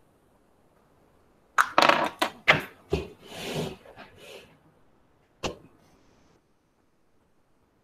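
A quick run of sharp clicks and knocks, then a couple of short rustling hisses, and one last click about five and a half seconds in: objects being handled close to a microphone.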